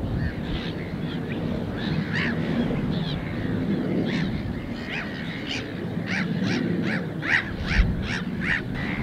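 Waterbirds calling repeatedly off camera, scattered at first and then a quicker, louder run of harsh calls near the end, over a steady low rumble. A single low thump sounds among the last calls.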